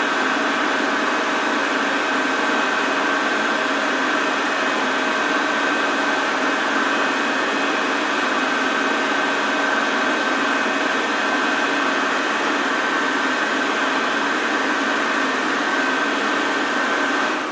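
Washing machine running with a steady whirring hum and a few constant tones, no change in rhythm or pitch, as in a spin cycle.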